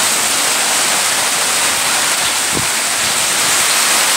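Heavy rain pouring down in a steady, dense hiss, with one brief low thump about two and a half seconds in.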